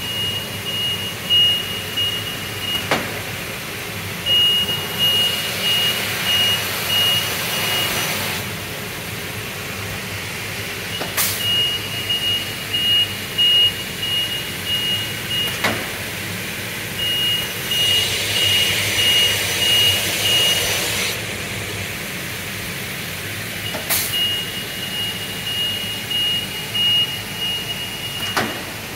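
FOM Industrie BZ 50 TH B double mitre saw for aluminium running through its cycle over a steady hum. A high electronic beep repeats quickly in spells of several seconds, and sharp clicks come every few seconds. Twice, about four seconds in and again about seventeen seconds in, a rushing noise swells for three to four seconds.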